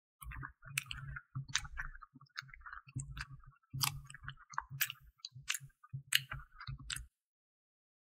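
Gloved hand swishing and rubbing strawberries in a glass bowl of water: irregular wet swishes and clicks, stopping about seven seconds in.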